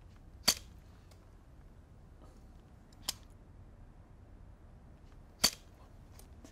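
Three sharp clicks from a hand caulking gun loaded with a cartridge of plasterboard adhesive, about two and a half seconds apart, the middle one fainter. Each click comes as a dab of glue is put onto a timber stud.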